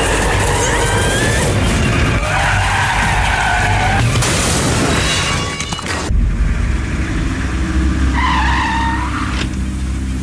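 Car chase sound: a car engine running hard with tires squealing, over background music. About six seconds in the sound cuts to a lower engine rumble, and there is another tire squeal near the end.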